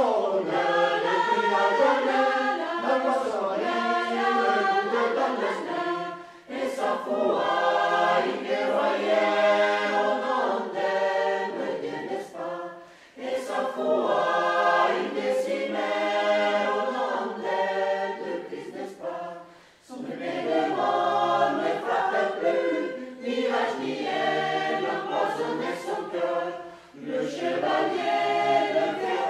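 A choir singing unaccompanied, in phrases of about six to seven seconds with short breaks for breath between them.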